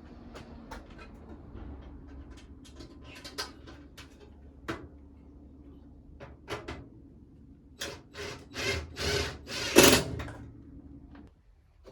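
Washing-machine parts being handled and fitted during reassembly: scattered clicks and knocks, then a run of scraping strokes near the end, the last one the loudest.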